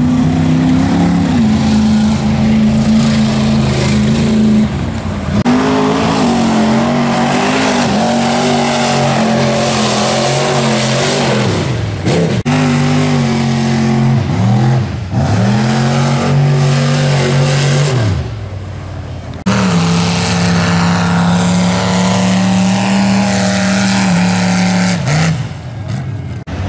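Mud-bog pickup truck engine run hard at high revs through the mud pit, its pitch dropping and climbing back several times as the throttle is lifted and reapplied, with a wash of tyre and mud noise over it.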